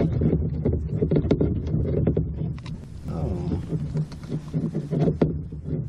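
Wind rumbling on the camera microphone, with scattered sharp clicks and rustles as a small lingcod is handled in gloved hands.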